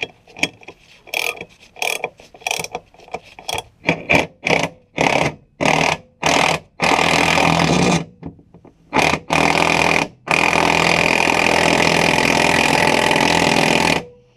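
Cordless electric ratchet running a nut down onto a motor-mount bolt. It starts as a string of short trigger bursts that grow longer, then runs for about a second and, after a few more short bursts, for about four seconds before stopping.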